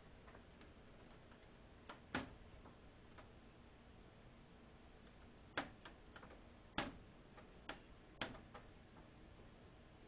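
Bird pecking at a feeder: irregular sharp taps, a pair about two seconds in, then a run of about eight from the middle to near the end, over near silence.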